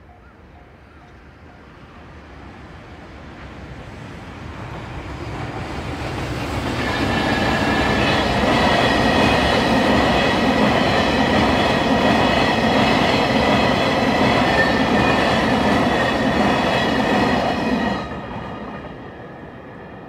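An EH500-hauled freight train of tank wagons passing over a level crossing, its wheels clattering over the rail joints. It grows louder over the first several seconds, holds steady, then drops off sharply near the end as the last wagon clears. A level-crossing warning bell rings throughout.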